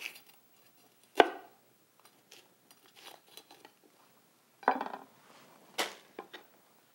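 Chef's knife knocking against a wooden cutting board while the core and seeds are cut out of a red bell pepper, with a little handling of the pepper. There are a few separate knocks: the loudest comes about a second in, and two more come near the end.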